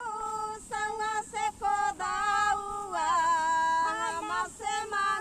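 A high-pitched voice singing a melody, with held notes and slides from one pitch to the next.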